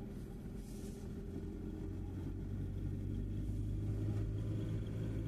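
Car engine running at low speed with tyres rolling over a gravel lane, heard from inside the cabin; the low hum grows a little louder from about halfway through.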